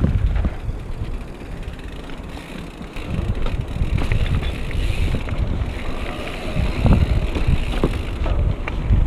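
Mountain bike rolling over rough trail, with wind buffeting the action camera's microphone. Scattered clicks and rattles run through it, and it eases briefly about two seconds in.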